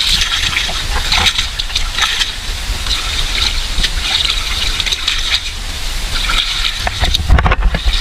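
Water gushing and splashing in a steady rush over a low rumble, with a flurry of sharper splashes about seven seconds in.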